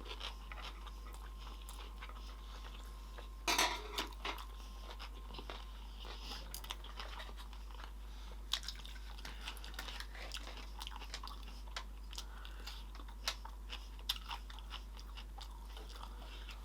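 Close-up eating sounds of sushi rolls: wet chewing with crisp crunches and small clicks. The loudest crunch comes about three and a half seconds in.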